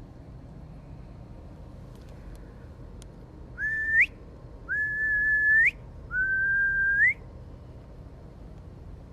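Three whistled notes, the first short and the next two about a second long, each held at a steady pitch and ending in a quick upward flick.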